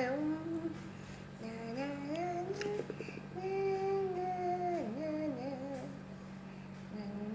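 A young girl singing softly to herself in long, wordless notes that glide up and down in short phrases, over a steady low hum.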